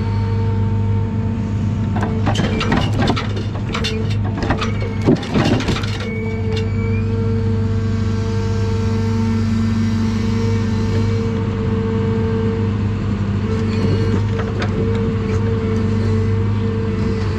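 John Deere 1010G forwarder's diesel engine and crane hydraulics running steadily. A cluster of wooden knocks and clatter comes between about two and six seconds in as the grapple grabs a bundle of logs. A few lighter knocks come about fourteen seconds in as the logs are dropped onto the pile.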